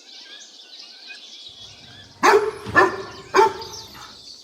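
A dog barking three times in quick succession, about half a second apart, with birds chirping faintly in the background.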